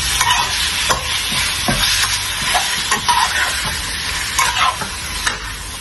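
Sliced marinated beef sizzling in a wok while a metal spatula stirs and turns it, scraping against the pan every second or so.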